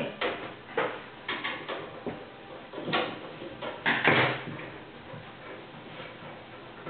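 Clicks and knocks of a screwdriver and a PC case being handled as the side panel's rear screws are undone, with the loudest clatter about four seconds in as the screwdriver is put down on the desk; quieter handling after that.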